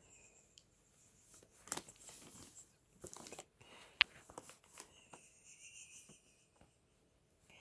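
Crinkling and rustling of an empty plastic snack bag, with sharp crackles, the loudest about four seconds in. In the second half a faint, high, steady wheeze-like whistle lasts about two seconds.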